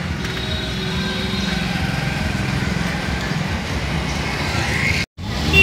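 Small motor scooter engine running as it passes close by, rising in pitch shortly before the sound cuts off abruptly.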